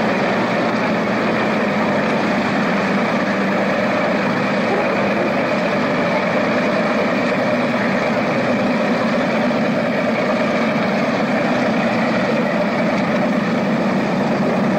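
Cigarette speedboat's engines running steadily at low speed, a constant drone that does not change in pitch or level.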